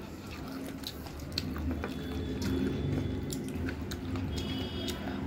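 Soft wet squishing and clicking of fingers mixing cooked rice with thin chicken curry on a plate, with chewing mouth sounds.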